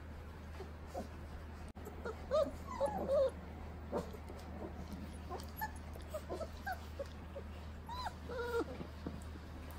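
Young Great Dane puppies whimpering and squeaking in many short, high, wavering cries, busiest a couple of seconds in and again near the end.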